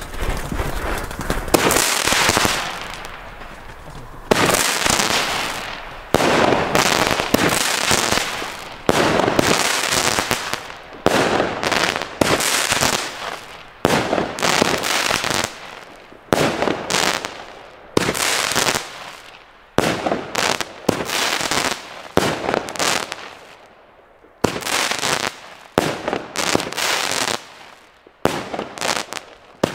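Beastmaster consumer firework battery firing shot after shot: each a sudden bang as a shell bursts, fading out before the next, about one a second and coming closer together near the end.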